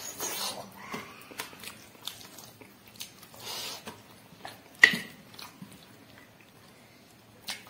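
A person eating pork, close to the microphone: wet chewing and biting with small mouth clicks and breathy hisses. One sharp click a little before five seconds in is the loudest sound.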